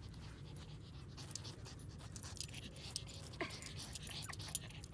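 A dog panting in quick short breaths with its tongue out, the sign of a dog that is hot.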